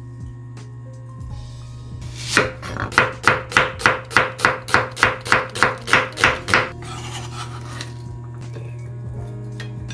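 A kitchen utensil knocking in a steady rhythm, about fifteen sharp strikes at roughly three a second, starting a couple of seconds in and stopping a few seconds before the end.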